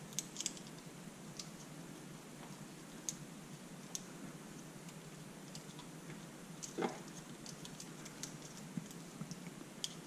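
Light scattered metallic clicks and taps of a Honda CB125E cam sprocket being seated on the camshaft and its bolts started by hand, with one louder knock about seven seconds in.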